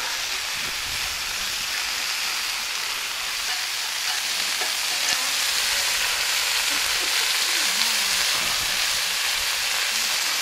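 Meat sizzling steadily on a hot heavy metal barbecue plate over a wood fire: rump steak, beef rissoles, sausages and prawn and chicken skewers frying together.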